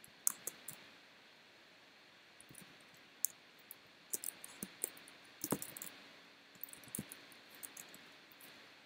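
Typing on a computer keyboard: irregular clusters of key clicks with short pauses between them, one heavier key strike about halfway through.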